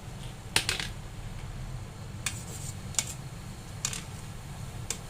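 Kitchen utensils clinking against cookware while pork is handled: about five sharp, irregular clicks over a low steady hum.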